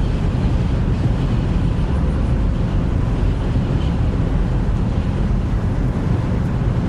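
Steady low rumble of a car driving: engine and road noise heard from inside the cabin.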